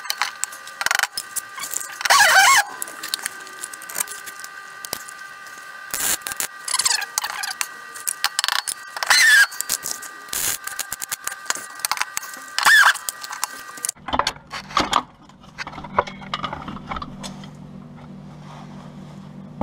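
Hand tools clinking, knocking and scraping on the steel of a car's wheel arch, with a few short metallic squeals. A steady background whine runs under it and changes to a lower hum about two-thirds of the way through.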